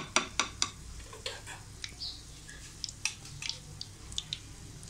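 A plastic spoon clicking against a glass bowl of gram-flour batter as it is stirred: a few quick taps in the first half-second. After that, scattered faint clicks and knocks of utensils being handled.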